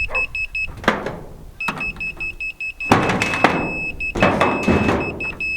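Laser level receiver beeping in quick, even pulses, at times holding a steady tone, which is the detector signalling how near it is to the laser's level line. A few short bursts of rustling or scraping come in between.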